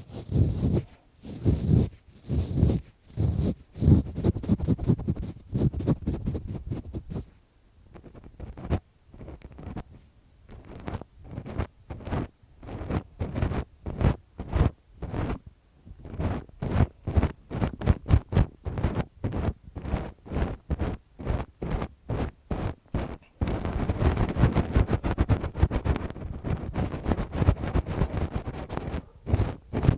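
Lace-gloved hands rubbing and scratching right on the microphone for ASMR ear-cleaning sounds: quick scratchy strokes several times a second, a brief pause, then a denser continuous rustling in the last several seconds.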